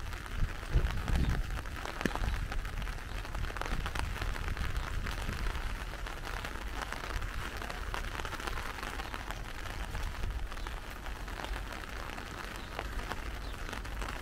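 Steady rain falling on an umbrella and a wet pavement, a continuous hiss of drops with a low rumble in the first second or two.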